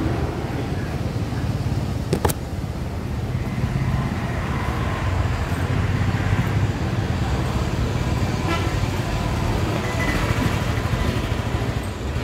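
Steady low rumble of outdoor background noise, with a single sharp click about two seconds in.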